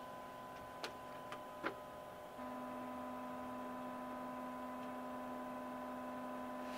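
Steady electrical hum made of several held tones, with three faint clicks in the first couple of seconds. One low tone gets louder about two and a half seconds in.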